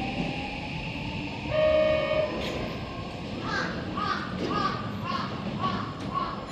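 An electric train's motors whining upward in pitch as it gathers speed, then a short horn blast about a second and a half in. A voice follows for the rest of the time.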